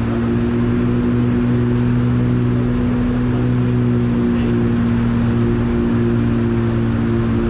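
Steady drone of a Piper Aerostar 700's twin piston engines and propellers heard inside the cabin: a constant low hum with several steady tones and no change in pitch.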